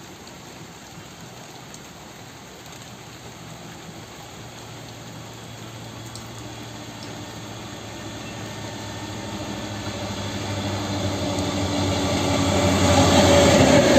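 DEMU (diesel-electric multiple unit) passenger train approaching: a steady engine hum and rail noise grow gradually louder as it nears.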